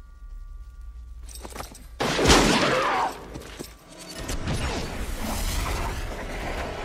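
Film soundtrack: a faint steady tone at first, then a sudden loud bang and shattering crash about two seconds in, followed by a dense stretch of gunfire mixed with music.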